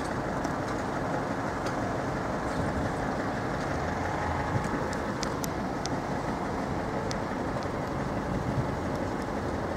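Steady low rumble of idling and passing vehicle engines, with a few faint ticks.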